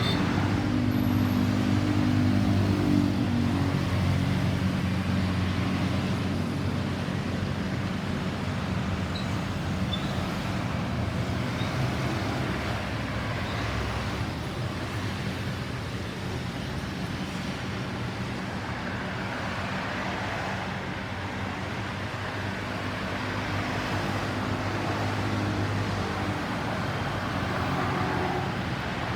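Road traffic: a steady hum of vehicle engines over tyre and road noise, stronger for the first few seconds and again near the end. No siren sounds.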